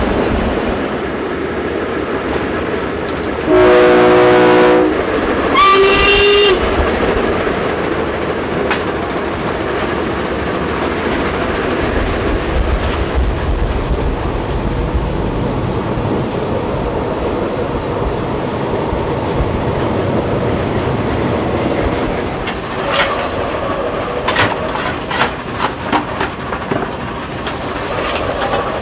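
Steady running and rail noise of steam locomotive 464.202 at speed, heard from its footplate, with two short train-horn blasts about four and six seconds in. Near the end, a run of sharp knocks and scrapes as coal is shovelled into the firebox.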